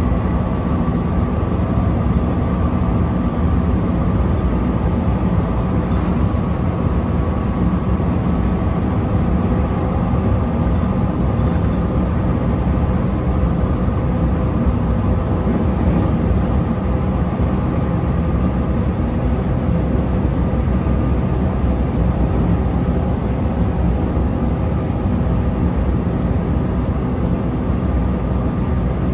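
JR West 221 series electric train running at a steady speed: a continuous rumble of wheels on rail with a faint steady whine over it.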